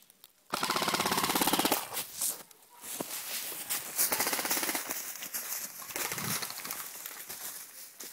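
Airsoft gun firing one rapid full-auto burst of about a second, starting about half a second in. Irregular crunching and rustling in dry leaves follows as the player moves through the litter.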